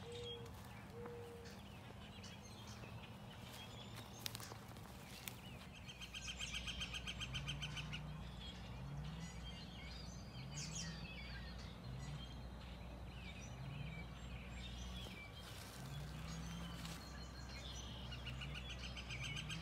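Northern flicker giving its long call, a rapid run of evenly spaced high notes, in several runs starting about six seconds in and still going at the end.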